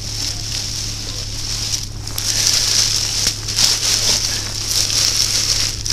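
Black plastic trash bag rustling and crinkling as hands stuff trash and bottles into it, a busy, continuous crackle with sharper crinkles throughout.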